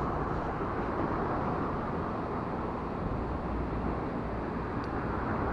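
Steady low rumbling noise with no distinct events, the kind of constant outdoor rumble heard beneath a road bridge.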